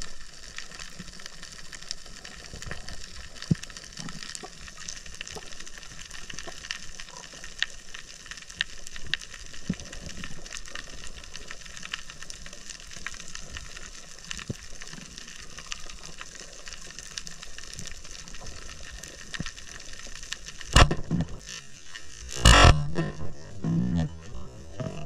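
Underwater coral-reef ambience, a steady crackle of many tiny clicks from snapping shrimp. Near the end comes a single sharp loud thump as the band-powered speargun fires, then a second burst of loud knocks and rattling about a second and a half later as the shaft strikes and the line jerks.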